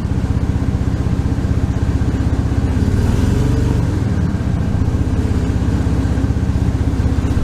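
2001 Ford F150's 4.2 L V6 running with a steady, even pulse under a light load in gear. A new ignition coil on cylinder 4 appears to have cured its misfire.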